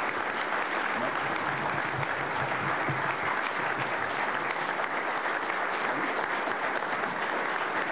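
Audience applauding: steady clapping from many people.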